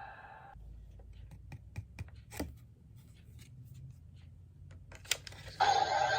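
Light clicks and rustles of small plastic cards being handled. Near the end, a loud burst of voice and music starts suddenly.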